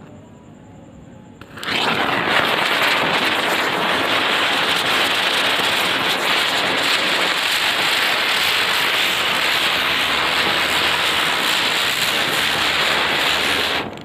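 Ashoka Ground Chakkar Deluxe ground spinner firework igniting about a second and a half in, then giving off a loud, steady hiss as it spins and throws sparks. The hiss cuts off abruptly near the end.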